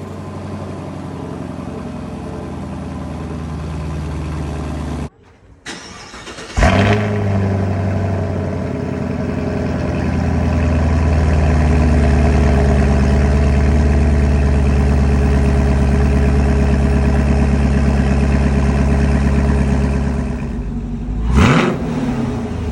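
2019 Camaro SS's 6.2-litre V8 running steadily. It cuts out about five seconds in, comes back with a sudden loud burst, and holds a long, loud, steady drone. Near the end there is a short rev that rises in pitch.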